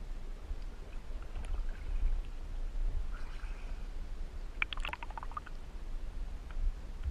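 Water lapping and splashing at the surface around floating divers, with a cluster of small splashes and drips about five seconds in over a steady low rumble.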